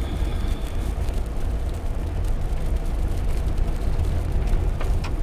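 Car driving along a dirt road, heard from inside the cabin: a steady low rumble of engine and tyres.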